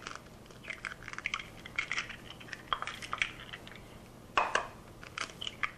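Eggs being cracked by hand: a run of light taps and crunches of shell, with a sharper crack about four and a half seconds in.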